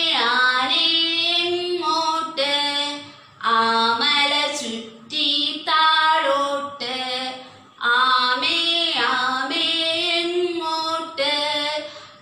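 A woman singing a Malayalam children's action song solo, without accompaniment, in short lines separated by brief pauses.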